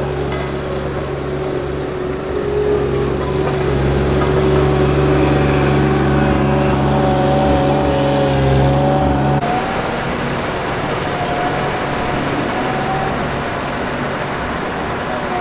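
Engines of asphalt-paving roadworks machinery running steadily. About nine seconds in, the sound changes abruptly to a thinner mix with a wavering whine.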